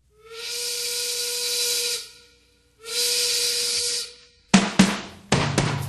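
Music-track intro: two hissing blasts, each about two seconds long with a steady whistle-like tone in it. Then a beat with sharp drum hits comes in about four and a half seconds in.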